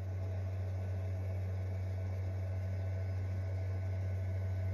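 Steady low machine hum from the CNC router, with no cutting noise.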